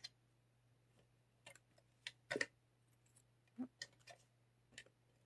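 Paper card pieces and an adhesive tape runner being handled on a craft mat: faint, scattered clicks and light taps, the loudest about two and a half seconds in.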